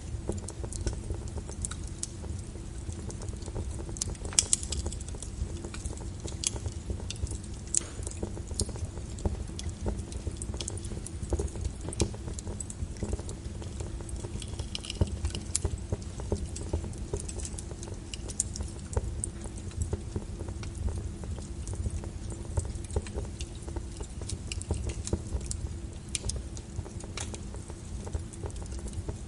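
Burning wood fire crackling, with irregular sharp pops and snaps over a steady low rumble; one louder pop comes about four seconds in.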